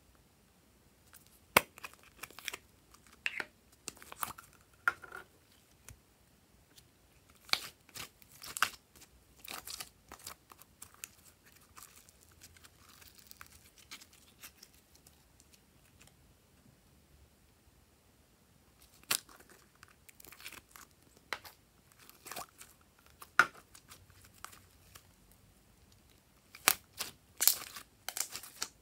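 Slime being stretched, squeezed and kneaded by hand, giving scattered sticky clicks, pops and crackles. These come in clusters with a quieter stretch in the middle.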